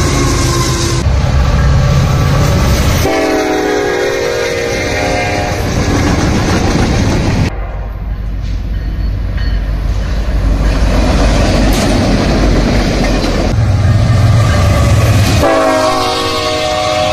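Short clips of passing diesel freight trains cut together: locomotive engines rumbling and wheels running on rail. A locomotive air horn sounds its chord about three seconds in and again near the end.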